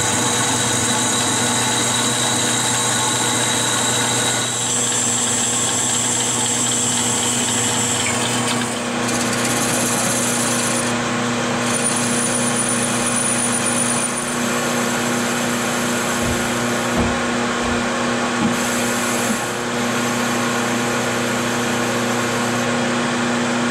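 Metal-cutting bandsaw running through 1.5-inch 6061 aluminum chime tubing, then a metal lathe spinning the tube while a cutting tool machines its end. A steady machine hum runs underneath, and the high cutting noise shifts several times.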